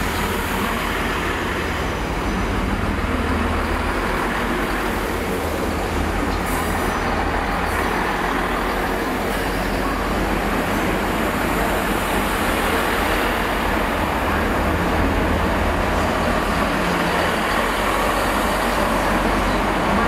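Class 166 Turbo diesel multiple unit running past along the platform: a steady diesel engine rumble with wheel and rail noise, growing slightly louder near the end.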